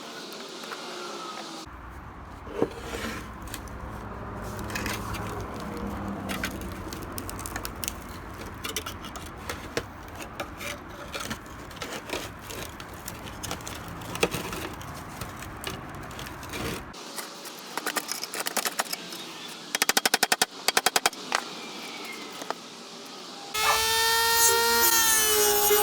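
Hand work on a rusty toy metal truck: scattered clicks and knocks, then a fast run of sharp clicks. Near the end a power tool starts up suddenly and runs with a steady whine.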